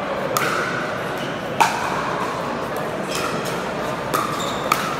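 Pickleball paddles hitting the plastic ball during a rally: about five sharp pops at uneven spacing, the loudest about one and a half seconds in.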